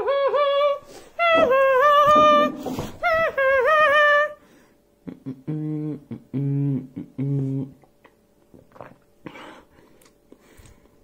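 Wordless vocalising by a person: a high, wavering humming or singing in short repeated phrases for about four seconds, then four short low hummed notes. After that there are only a few faint clicks.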